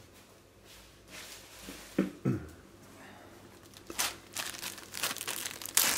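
Plastic packet crinkling and rustling as it is handled and opened, the crackling growing dense in the last two seconds.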